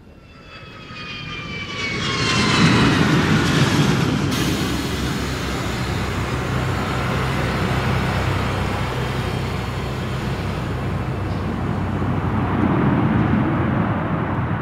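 Jet aircraft noise. It swells over the first two seconds or so, with several whining tones falling in pitch, then holds as a steady loud rush and swells again near the end.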